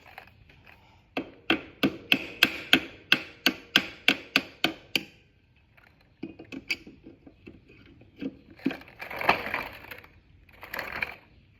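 A hammer striking repeatedly, about a dozen sharp blows at roughly three a second, to drive a part loose on a three-wheeler's front wheel. Lighter taps follow, then two short rasping noises near the end.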